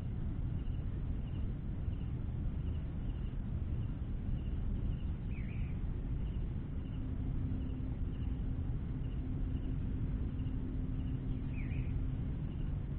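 Lakeside ambience: a steady low rumble with a faint, evenly repeated chirping high up. A bird gives a short call twice, about six seconds apart. A faint steady low hum comes in about halfway.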